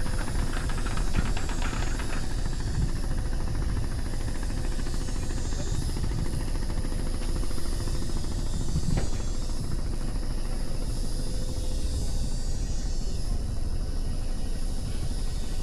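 Steady rushing noise with a low rumble and a faint steady hum.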